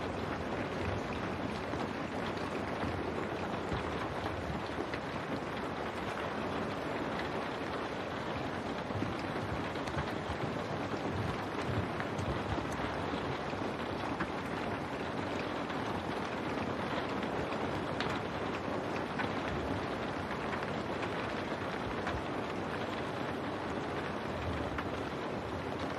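Steady rain falling on window glass: an even hiss with scattered faint drop ticks.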